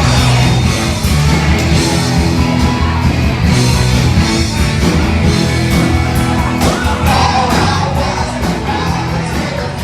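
Live band playing loudly, with a singer's voice over guitars, bass and drums.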